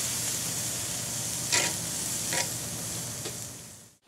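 Bison hanger steak sizzling on hot cast iron grill grates over charcoal, a steady hiss with a couple of short clicks around the middle. The sizzle fades out near the end.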